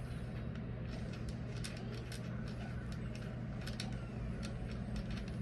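Scattered faint clicks and small metallic taps as a part of an M1 Garand rifle is unscrewed and handled during disassembly, over a steady low hum.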